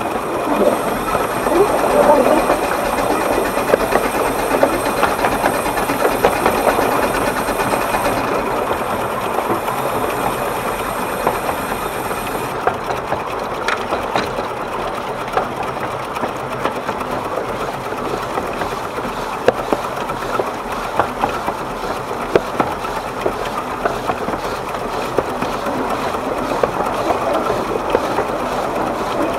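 12¼-inch-gauge steam locomotive Naomi (Exmoor Steam Railway, 2002) running along the line, a rapid steady chuffing mixed with wheels clicking and clattering on the track. A thin high tone runs over it and cuts off about twelve seconds in.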